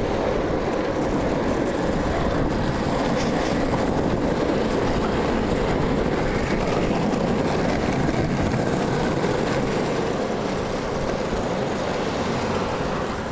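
Longboard's urethane wheels rolling over coarse asphalt: a steady rumble that eases off slightly near the end.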